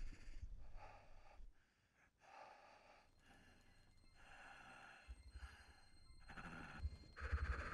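A man breathing hard inside a space helmet: a run of short, separate breaths and gasps about one a second. A low rumble comes in about five seconds in and grows louder near the end.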